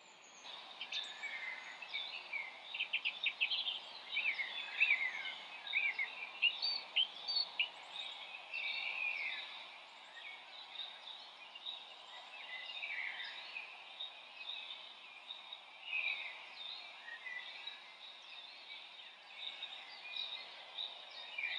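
Many birds chirping and calling over a steady background hiss, the chirps busiest in the first several seconds and sparser after.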